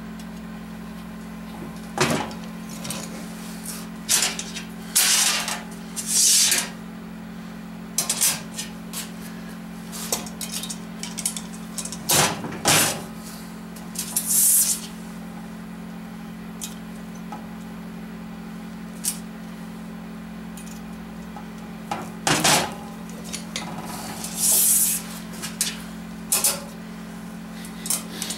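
Metal clinks and clacks of valve springs, retainers and keepers being fitted to a Chevy 5.7 Vortec cylinder head with a bench-mounted lever valve spring compressor. They come in scattered clusters of sharp knocks over a steady low hum.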